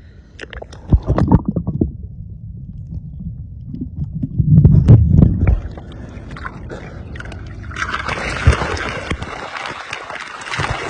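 Seawater sloshing and splashing with knocks and bumps and a low rumble, as a gargoor, a wire fish trap, is hauled out of the sea. Sharp knocks come about a second in, and from about eight seconds a steady rush of water pouring and splashing.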